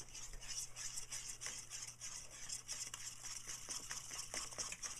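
Spoon stirring and scraping around a saucepan of cooking chocolate, sugar and milk mixture: a quick, uneven run of faint scrapes, with a steady low hum underneath.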